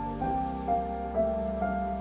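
Soft background music: a slow melody of single notes, mostly stepping downward, over held low chords.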